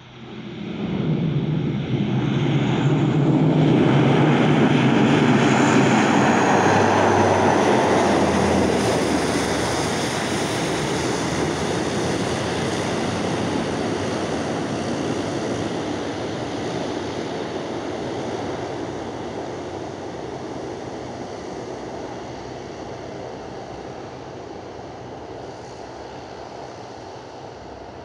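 Bombardier Q400's twin Pratt & Whitney PW150A turboprop engines and propellers on the landing rollout: the roar rises quickly to a loud peak with a low propeller hum that drops in pitch about eight seconds in, then slowly fades as the airliner rolls away down the runway.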